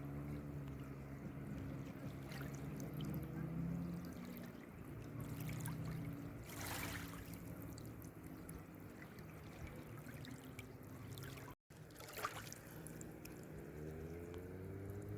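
Faint quad bike engine buzzing about, its note fairly steady at first, dropping back in the middle, then climbing in pitch as it revs up again near the end.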